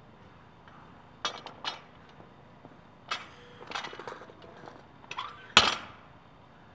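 Bumper plates being changed on a barbell sleeve: a series of sharp metal clanks and clinks as the plates' steel hubs knock against the bar, about six in all, some ringing briefly. The loudest comes near the end.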